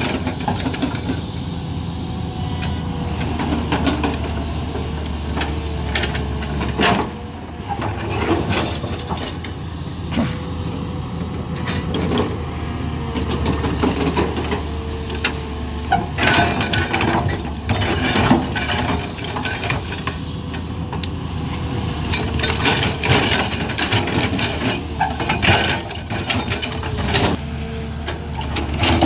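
Crawler excavator at work: its diesel engine running steadily, with repeated clanks and rattles as the bucket and steel tracks move earth and stones.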